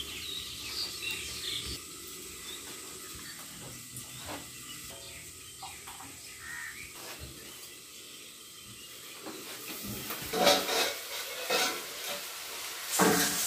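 Sliced potatoes frying in a steel pan: a faint steady sizzle, then from about ten seconds in a metal spatula scraping and knocking against the pan as they are stirred.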